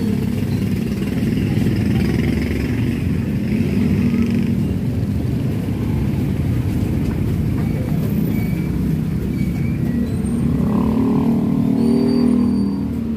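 Steady low rumble of street traffic, with motorcycle and car engines running.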